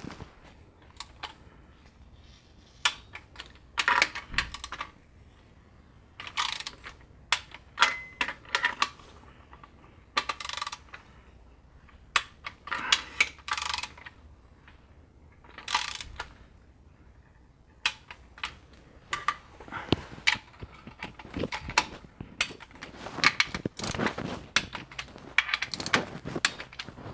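Ratcheting torque wrench on a long socket extension clicking in short, quick runs as the oil pan bolts are run down and tightened, with light metal clinks of the socket and extension; the clicking comes in bursts several seconds apart, then more densely near the end.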